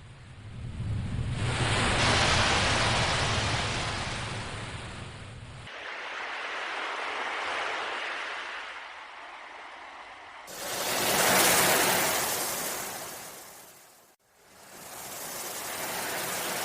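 Ocean waves surging and washing back in slow swells, about four surges, the loudest near the middle. The swells are spliced together with sudden cuts between them.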